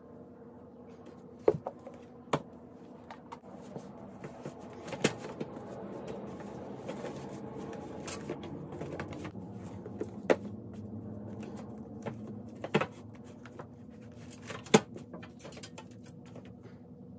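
Books being handled and set onto the shelves of a metal rolling book cart: about six sharp knocks and taps with softer shuffling between them, over a steady low hum.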